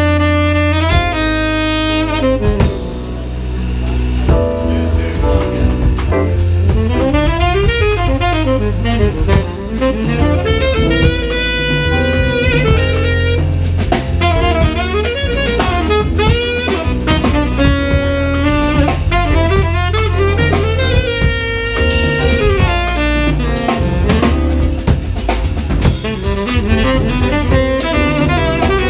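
Live jazz quartet playing: a tenor saxophone carries a melodic line of quick runs and sustained notes over bass, piano and drum kit.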